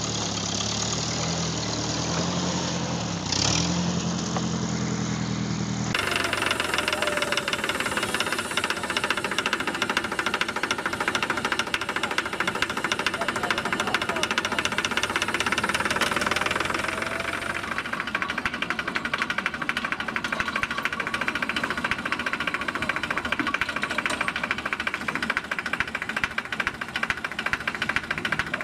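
A vintage tractor engine running steadily while pulling a plough, with one short clunk about three seconds in. After about six seconds it cuts to a Farmall D-series diesel tractor engine running with a fast, even clatter, which eases slightly about two-thirds of the way through.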